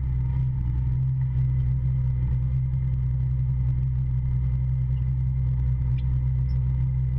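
Polaris Ranger side-by-side's engine running at a steady speed while driving, a constant low drone.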